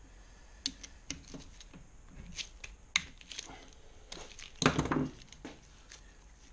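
Socket wrench being fitted and worked on a cylinder-barrel retaining bolt: scattered metallic clicks and knocks, with a louder clatter about five seconds in.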